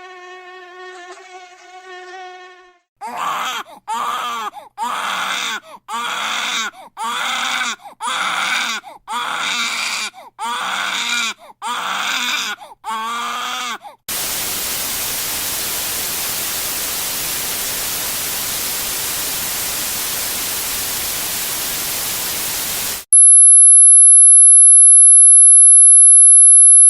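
A string of annoying sound effects, one after another. First a steady insect buzz like a mosquito. Then about eleven wailing cries like a crying baby, one a second, then a steady even white-noise hiss, and then a very loud, steady, piercing high-pitched tone.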